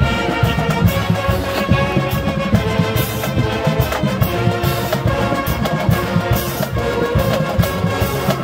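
College marching band playing: brass and saxophones holding sustained notes over drums and cymbal crashes, with many sharp hits.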